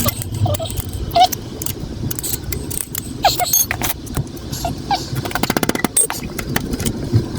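Metal tools clinking and knocking against each other and against metal parts, with a fast run of ratchet-like clicks a little past the middle.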